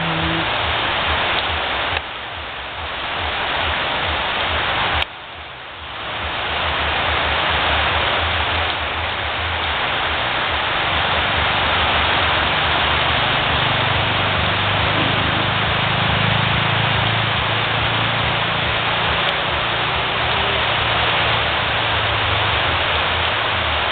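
Heavy rain pouring steadily onto trees, leaves and waterlogged ground, a dense even hiss. The level drops sharply twice, at about two and five seconds in, and quickly comes back.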